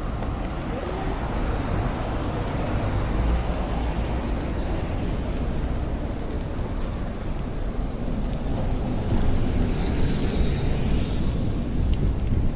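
Steady low rumble of city street traffic, with some wind on the microphone.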